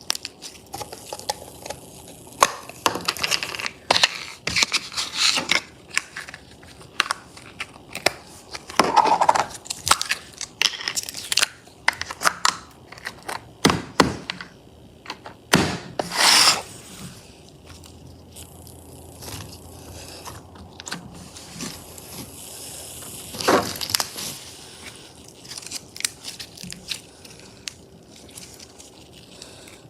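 Slime being squeezed and worked by hand, giving irregular bursts of crackling and crunching clicks, busiest in the first half and quieter in the last few seconds.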